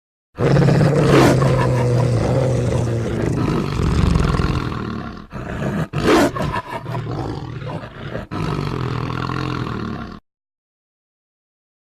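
Made-up dinosaur creature roar sound effect: one long roar of about ten seconds, with a steady low hum under its first few seconds and a few brief dips in the middle, cutting off abruptly into silence.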